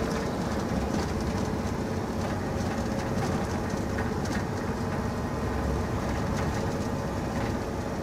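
Scania R440 truck's diesel engine holding the truck back on a steep descent with the engine brake on in fifth gear, heard from inside the cab: a steady drone with light rattles.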